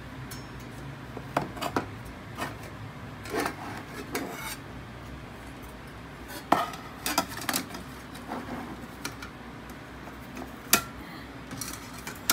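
Scattered metallic clinks and clatters as the hinged sheet-metal panels and wire rack of a Sterno folding stove are handled. A few sharper knocks stand out, the loudest about six and a half seconds in and again near eleven seconds.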